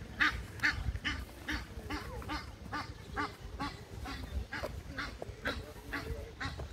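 Waterfowl calling in a long, even series of short calls, about two or three a second.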